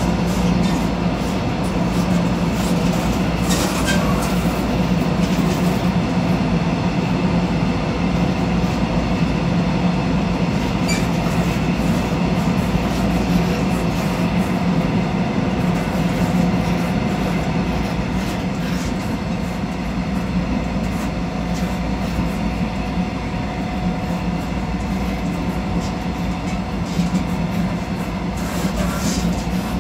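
Taiwan Railways local commuter train running, heard at the gangway between two cars: a steady loud rumble of wheels and car body with a low hum, and a few sharp clicks scattered through it.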